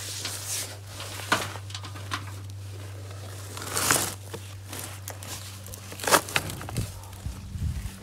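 Handling noises from building work: rustling and scraping with scattered sharp knocks, a louder scrape about four seconds in, over a steady low hum.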